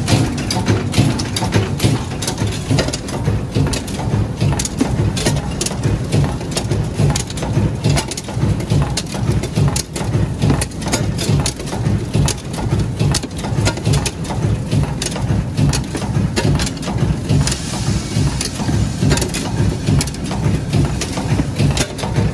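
High-speed fastener-making machine running at production speed: a continuous, rapid metallic clatter of many quick knocks over a pulsing low rumble.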